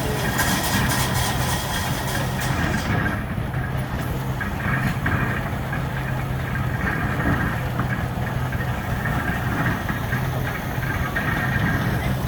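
Case steam engine running steadily while driving a sawmill under belt. It makes a constant mechanical running sound, with a rapid high ticking through the first three seconds.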